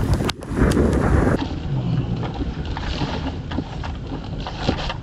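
Strong wind buffeting the microphone with a low rumble. About a second and a half in it turns quieter and more muffled, as heard from inside a vehicle, with scattered light taps of rain on the windshield glass.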